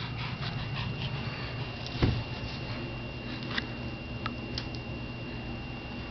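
Quiet room tone with a faint steady high whine, a few small soft clicks, and a single dull thump about two seconds in.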